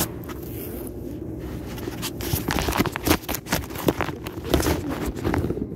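Handling noise from a phone held in the hand with its lens covered: scrapes, rubs and knocks on the microphone, coming thick and fast from about two seconds in, over a steady low hum.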